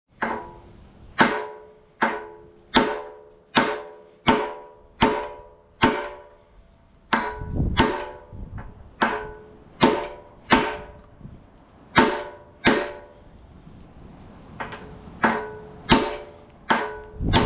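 Hammer blows on a steel driver, about eighteen ringing metallic clangs, roughly one or more a second with a short pause past the middle: a bushing being driven into its bore on a John Deere 35D excavator, past the seal.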